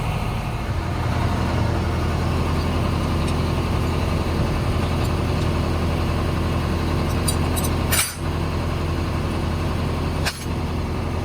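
An engine running steadily at idle, a low even hum, with two short dips marked by sharp clicks near the end.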